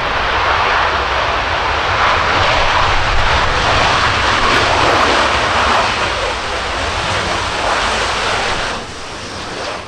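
Panavia Tornado's twin RB199 turbofan engines running at high power as the jet rolls down the runway: a loud, dense jet noise that eases off over the last few seconds.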